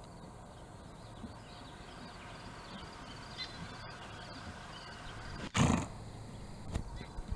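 A horse gives one loud, short snort about five and a half seconds in, followed by a couple of faint knocks near the end. Faint bird chirps sound throughout.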